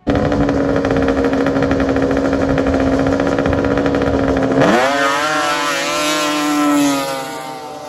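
Drag-racing snowmobile engines held at high revs on the start line. About four and a half seconds in, the pitch dips sharply and climbs again as the sleds launch. The sound fades near the end as they pull away down the grass strip.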